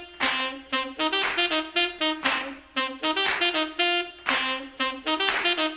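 Upbeat intro music: a horn-led melody in short, quick notes.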